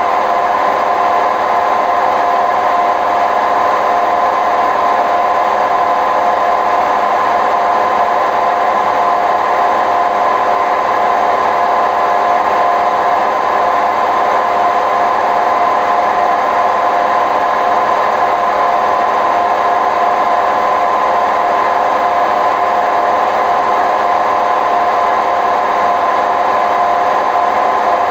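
Hotpoint WMF760 washing machine on its spin cycle, the drum turning at a steady speed with a loud mechanical rumble and a steady whine over it: the noise of worn, failing drum bearings.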